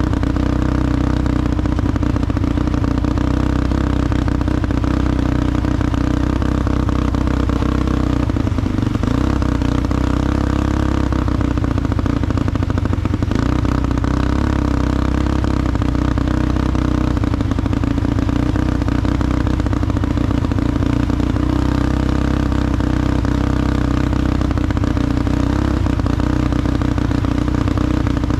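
ATV engine running steadily under way, with a rattling clatter from the machine.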